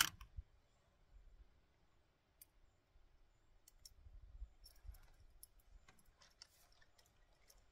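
Small fishing tackle being handled: one sharp click at the start, then scattered faint clicks and light handling noise.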